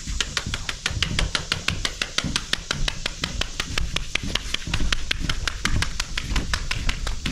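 Chalk line reel clicking rapidly and evenly, about six clicks a second, with low thuds underneath.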